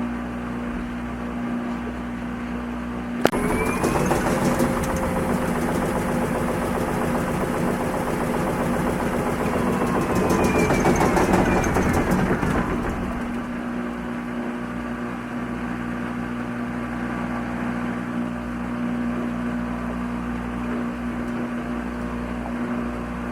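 Washing machine with a steady hum. A sharp click about three seconds in, then its motor runs for about ten seconds, with a whine that rises and then slowly sinks before it stops.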